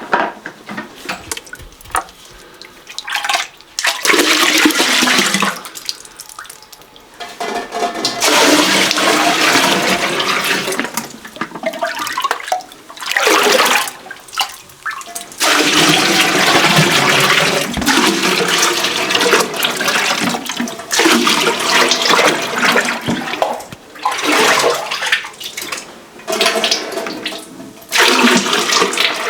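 Water running and splashing in repeated rushes of one to four seconds each, with short pauses between.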